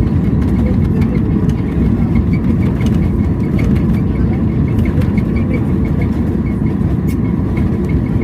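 Passenger airliner rolling on the runway after landing: a steady low rumble, with a faint rapid ticking throughout.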